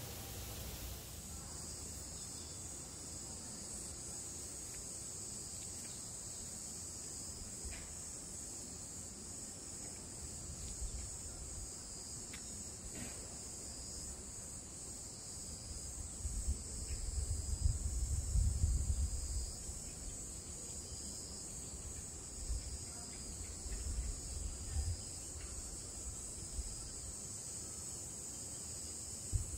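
A steady, high-pitched chorus of cicadas, with a softer pulsing beat beneath it, starting about a second in. Wind rumbles on the microphone in gusts, most strongly around the middle.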